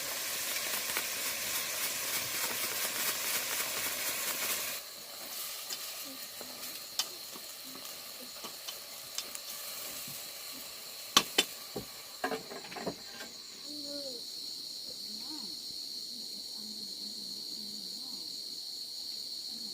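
Food sizzling in a hot pan for about five seconds, which cuts off suddenly. Then come a few sharp clicks and knocks, and from about two-thirds of the way in a steady, high cricket trill.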